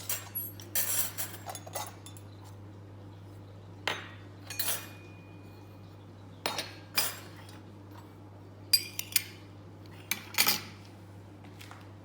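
Toy dishes and utensils from a children's play kitchen set clattering and clinking as they are handled, in scattered knocks with a busier cluster of clinks late on, over a steady low hum.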